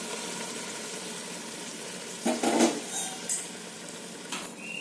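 Chicken and masala sizzling steadily in a cooking pot as boiled water is added for pulao. A few clatters of a cup or vessel against the pot come about two to three seconds in.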